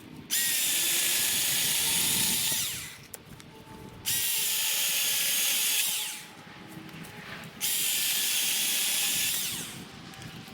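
Milwaukee Fuel battery chainsaw running in three bursts of about two seconds each. Each burst starts suddenly at full speed as a high, steady whine, then winds down.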